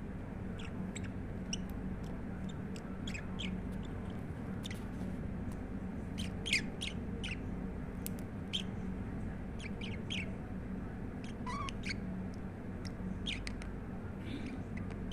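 Pet budgerigar chirping and chattering in quick, scattered high chirps, over a steady low hum.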